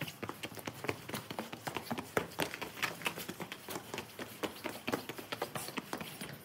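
Footsteps on cobblestones: a fast, uneven run of sharp clicks and scuffs, several a second.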